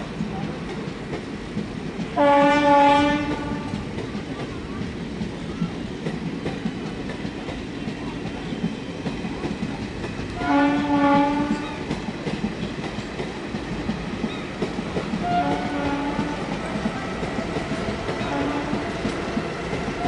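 Express train coaches rolling past with a steady clickety-clack of wheels over rail joints, while the WAP4 electric locomotive at the head sounds its horn, honking for clearance. There are two loud blasts of about a second each, about 2 and 10 seconds in, then two fainter, shorter blasts near the end.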